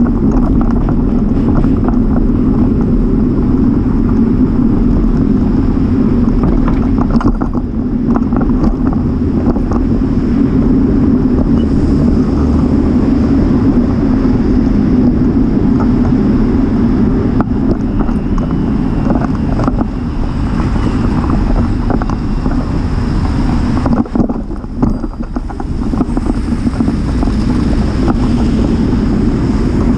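Steady wind and road rumble on a bicycle-mounted camera's microphone while riding, with frequent small clattering knocks from bumps in the riding surface. The noise drops briefly about three-quarters of the way through.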